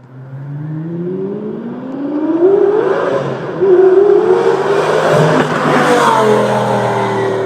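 A car engine revving: the pitch climbs in surges, drops back about three and a half seconds in, rises again to its loudest, then eases down over a steady low hum.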